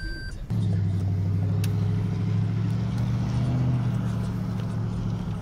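A short beep, then about half a second in a car's engine cuts in suddenly and runs steadily, heard from inside the cabin.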